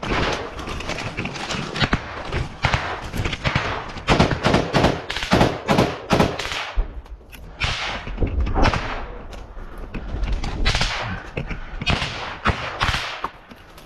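Close-range small-arms gunfire in a forest firefight: many sharp shots at irregular spacing, densest in rapid strings around the middle, with one heavier deep thud a little past the middle.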